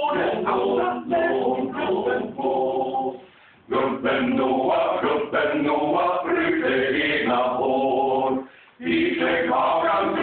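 Men's chorus singing a cappella in Swedish, in several parts, with short breaks between phrases about three and a half and eight and a half seconds in.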